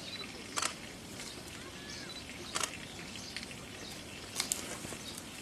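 Giant panda biting and snapping bamboo: three sharp cracks about two seconds apart over steady outdoor background noise.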